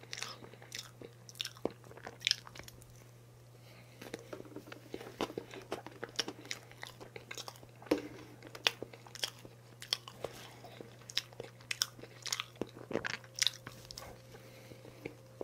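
Close-miked eating of a chocolate layer cake with a small fork: irregular soft clicks and wet smacks of the fork cutting and scraping the cake and of chewing, over a faint steady low hum.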